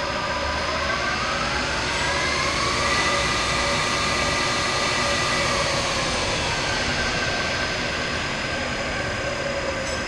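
ACER E-Lathe running, its spindle drive whine rising in pitch over the first few seconds as the spindle speeds up, holding steady, then falling back about six seconds in as it slows.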